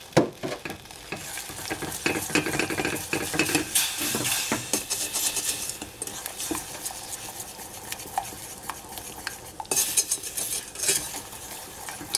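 Wooden spoon stirring caramel syrup of sugar and juice in a stainless steel saucepan, scraping and knocking against the pan's bottom and sides in quick, irregular strokes. The stirring is busiest in the first half and again near the end.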